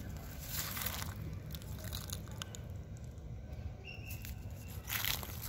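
Gloved hands hauling a magnet-fishing rope over a concrete edge and through thick waterweed, with rustling and scraping as a heavy catch is dragged in. Two louder scrapes stand out, about half a second in and near the end.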